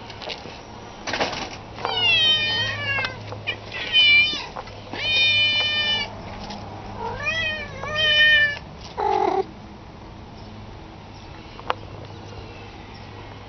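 Domestic cats meowing: a run of four or five loud, drawn-out meows over the first nine seconds or so, several gliding down in pitch.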